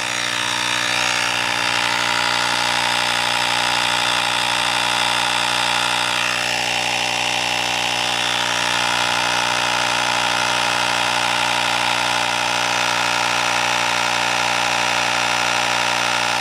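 Compact cordless electric tyre inflator running steadily, a continuous buzzing hum with a hiss above it, as it pumps an e-bike tyre up from about 3 bar toward the 4 bar it is set to.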